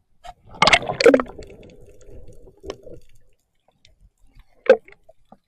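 Water splashing and dripping: two loud splashes about a second in, trickling for a couple of seconds after, and another sharp splash near the end.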